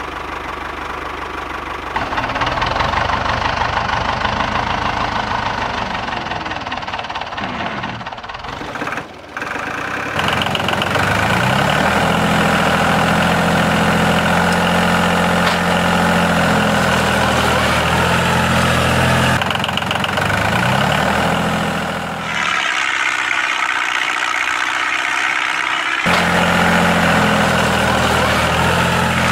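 Small DC motor of a homemade toy tractor running under load as the tractor churns through wet mud, its pitch wavering with the load. The sound changes abruptly several times.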